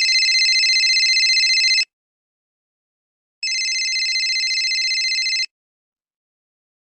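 Telephone ringing twice, each ring a high, fast-trilling tone lasting about two seconds, with a pause of about a second and a half between them.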